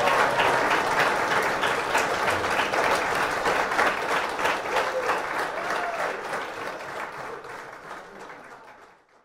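Crowd of wedding guests applauding, a dense patter of many hands clapping that dies away gradually over the last few seconds to silence.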